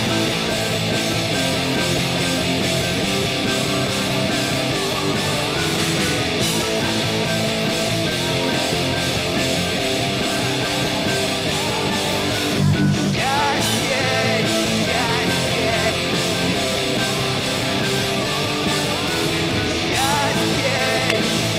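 Rock music with electric guitar, playing steadily throughout.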